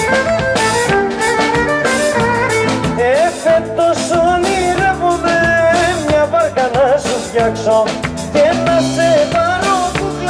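Live Greek popular music from a band with violin, keyboards and drum kit keeping a steady beat. A violin carries the melody at first, and a man's singing voice takes over the wavering lead line from about three seconds in.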